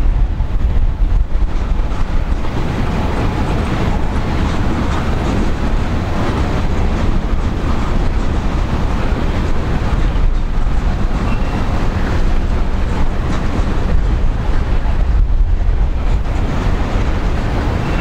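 Wind buffeting the microphone: a steady low rumble with a hiss over it.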